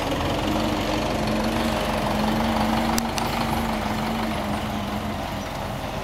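Farm tractor's diesel engine running steadily at idle, with a single sharp click about halfway.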